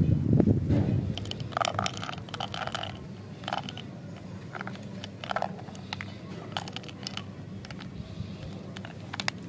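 Hands handling a small pink plastic candy container: scattered short plastic clicks and scrapes as its flip-top lid is worked, after a louder rumble of handling in the first second.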